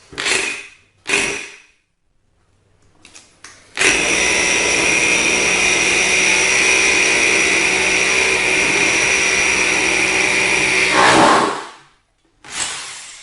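Bosch GBH 2-20RE 600 W rotary hammer, set to hammer-drill mode with a 10 mm bit, drilling into a concrete block: it runs steadily with a high whine for about eight seconds, then winds down to a stop. Two short knocks come just before it starts.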